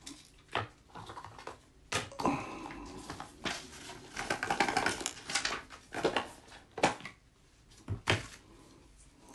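Cardboard box packaging handled by gloved hands: rustling and scraping with a run of sharp taps and knocks as the lid and insert are lifted and the boxes moved, quieter for the last couple of seconds.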